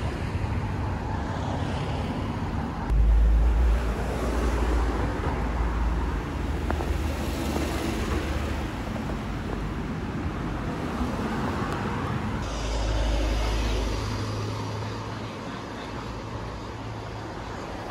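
Road traffic on a town street: cars and a van driving past, a steady wash of engine and tyre noise, with two short spells of heavier low rumble.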